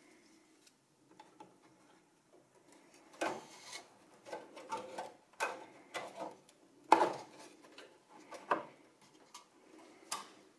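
Scattered clicks, knocks and light scrapes of a video card being seated in a PCIe slot of an open server case. The loudest knock comes about seven seconds in.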